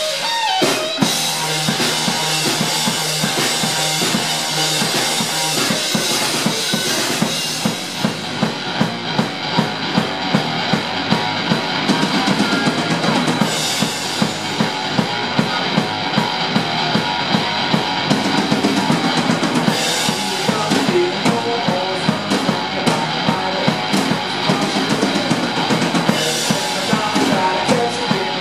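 Live rock-blues band playing an instrumental stretch: electric guitar over a drum kit. Cymbals wash through the first several seconds, then the drums settle into a steady beat of about two strong hits a second.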